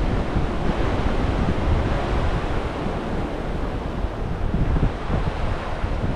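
Wind buffeting the microphone in gusts over the steady wash of ocean surf.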